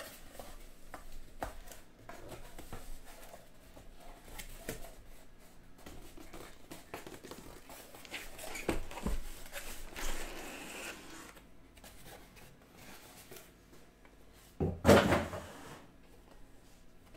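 A cardboard case of trading-card boxes being opened and handled: scattered light knocks, clicks and rustles, with one loud burst of about a second near the end.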